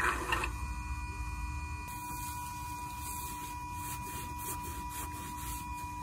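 A steady electric whine with a few higher overtones from the electronic throttle body's motor, holding the throttle plate open with the ignition on and the gas pedal held down. From about two seconds in, a rag faintly rubs over it.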